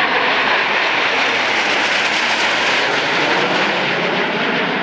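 A formation of nine Canadair CT-114 Tutor jet trainers passing overhead, a steady loud rush of their turbojet engines.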